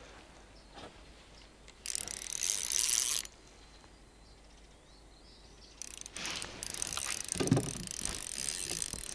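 Spinning reel on a light feeder rod ratcheting as its drag gives line to a hooked fish making a run: a burst of fine clicking about two seconds in, and again, longer and more steadily, from about six seconds on.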